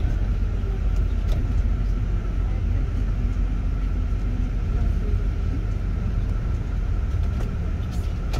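Airport apron bus driving, heard from inside the passenger cabin: a steady low rumble with a faint steady whine above it.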